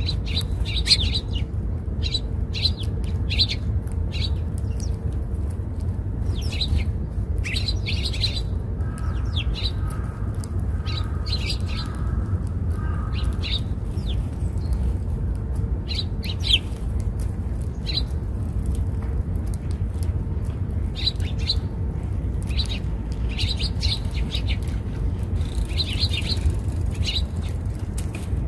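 Sparrows chirping in short calls, one every second or so, some in quick clusters, over a steady low rumble.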